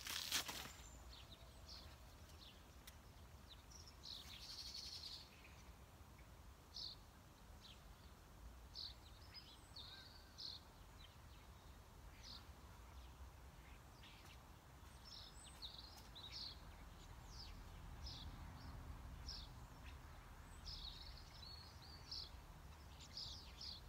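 Small birds chirping now and then, short high calls scattered over a faint, steady low rumble, after a brief noise at the very start.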